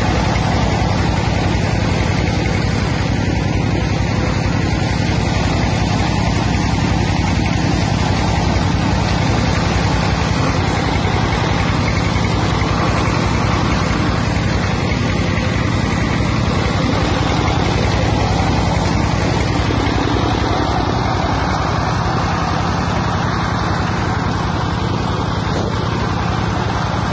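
Engine-driven peanut-shell grinding machine running steadily at full speed, grinding peanut shells, with a dense rushing noise over the engine's steady drone.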